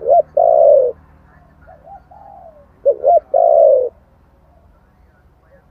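Spotted dove cooing. Each phrase is two short notes followed by a longer falling coo, and it comes twice, about three seconds apart, with softer coos in between.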